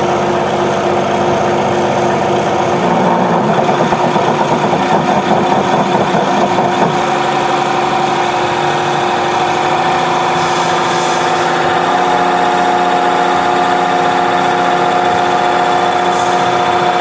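Common-rail diesel engine running on a test stand, revved up from about 1400 to 1800 rpm, its pitch stepping up about two-thirds of the way through. The run-up is part of a fuel-rail pressure and injection-duration test.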